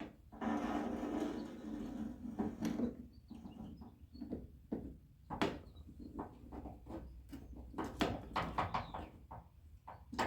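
Hand work on a car door's outer handle mounting: a scraping, rustling stretch, then a string of short metallic clicks and knocks as the handle is bolted into the door.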